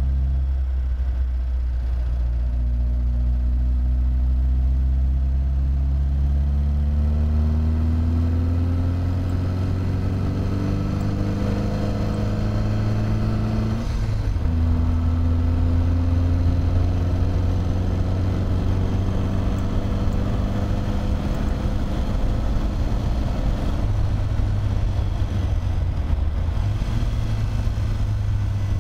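Triumph TR3A's four-cylinder engine under load, rising steadily in pitch for about twelve seconds, then dropping suddenly at a gear change and climbing slowly again.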